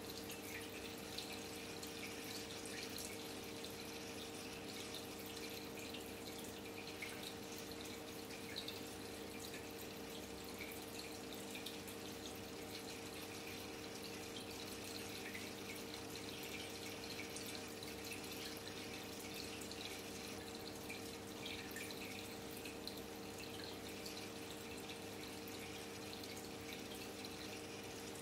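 Faint, steady aquarium water trickling and dripping with small crackles, over a steady low mechanical hum.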